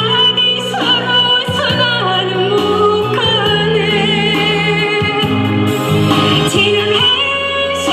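Woman singing a Korean trot song live into a handheld microphone over amplified backing music, holding long notes with vibrato.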